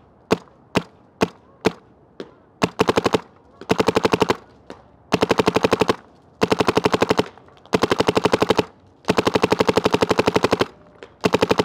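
Empire Mini GS electronic paintball marker firing with its stock barrel: about five single shots half a second apart, then rapid strings of shots at roughly fourteen a second, each string lasting up to about a second and a half with short pauses between.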